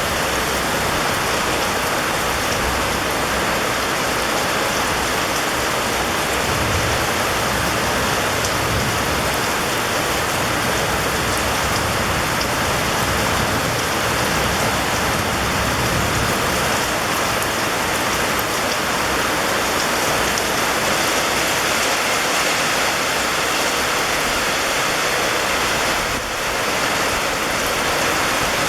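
Steady, even rain, a dense hiss with no individual drops standing out, with a brief dip in level near the end.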